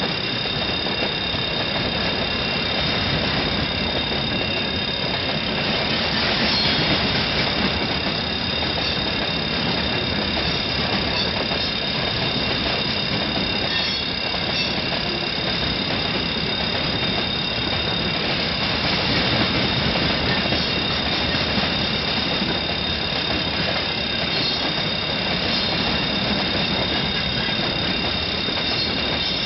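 Freight train of tank cars and open gondola wagons rolling steadily past, its wheels rumbling and clattering on the rails, with a constant high-pitched wheel squeal over the top.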